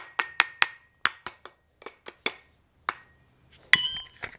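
Electric starter motor housing tapped with a tool to knock its end-cap bearings into line. About a dozen sharp metallic taps come in uneven groups, then a ringing clink near the end.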